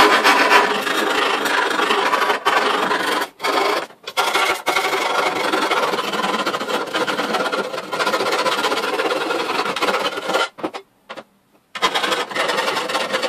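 A hand file rasping around the edge of a freshly hole-sawn opening in a panel, in quick back-and-forth strokes that clean up the rough edge the hole saw left. The filing breaks off briefly a few times and stops for about a second near the end.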